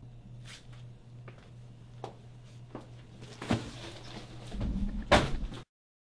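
Quiet room tone with a steady low hum, a few faint knocks, and a louder thump about five seconds in.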